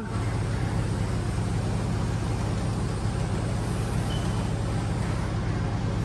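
Forklift running with a steady low drone as it slowly lowers a vertical baler.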